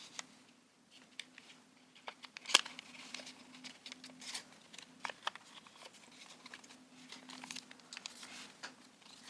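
Sheet of origami paper being handled, creased and pressed into an inside reverse fold, giving scattered soft crackles and crinkles, with one sharper crackle about two and a half seconds in.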